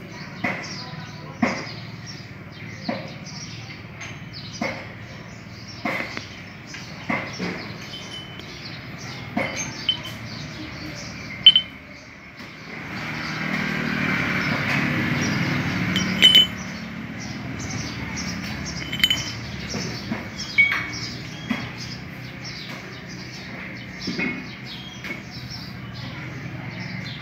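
Metal parts of a dismantled motorcycle crankshaft, flywheel halves and crank pin, clinking and ringing briefly as they are handled and knocked together, a sharp clink every second or two. A rush of steady noise rises for a few seconds near the middle.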